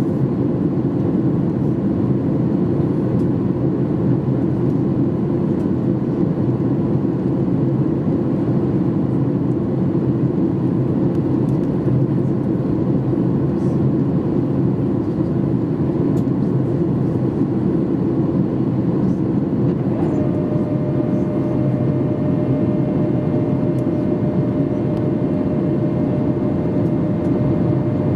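Cabin noise inside a Boeing 737-800 on descent: the steady rush of airflow and its CFM56 engines heard from a window seat over the wing. About two-thirds of the way through, a steady higher whine joins in and holds.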